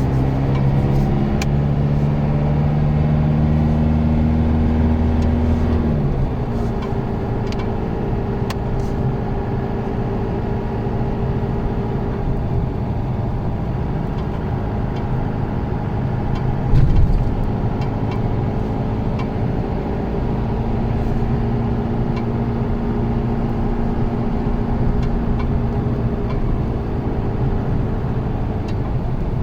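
A car engine running while driving, a steady drone over road noise; the engine note drops about six seconds in and then holds steady. A brief bump is heard about seventeen seconds in.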